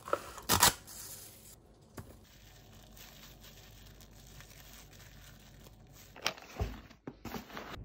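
Plastic food wrap pulled from its box and torn off, crinkling. There are a few short sharp tearing and rustling sounds about half a second in and again near the end, with quiet handling in between.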